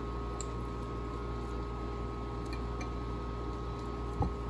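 Steady hum of a countertop ice maker running, with a few constant tones in it; a single soft thump near the end.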